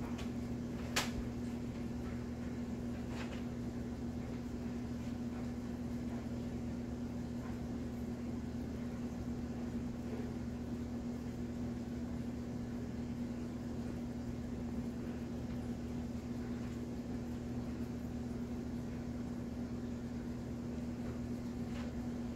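Steady mechanical hum from a small motor or appliance, such as a fan, holding one even pitch with lower humming underneath. There is a single faint tap about a second in.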